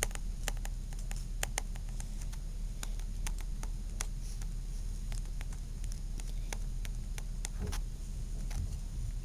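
Light, irregular clicks and taps, several a second, as a fingertip rubs wood glue across a small wooden fingerboard deck lying on sheet sandpaper. A steady low hum runs underneath.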